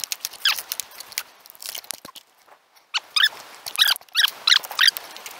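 Footsteps crunching through dry leaves and undergrowth, many sharp crackles, with short bursts of high squeaky chirps about half a second in and again from about three seconds on.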